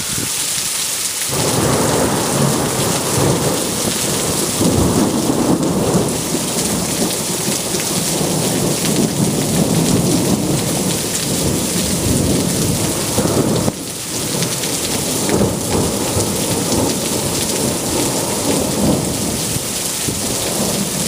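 Heavy rain falling steadily with thunder rumbling almost continuously, one peal rolling into the next. The rumble comes in about a second in, drops away briefly about two-thirds of the way through, then rolls on again.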